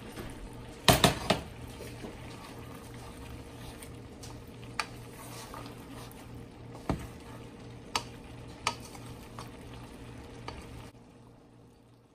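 Wooden spoon stirring chicken and vegetables in a large aluminium pot over a steady frying sizzle, with a cluster of loud clatters about a second in and a few sharp knocks of the spoon against the pot later on. The sound cuts off suddenly near the end.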